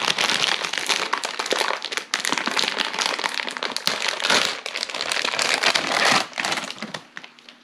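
Plastic toy packaging crinkling steadily as it is pulled open by hand, dying away near the end.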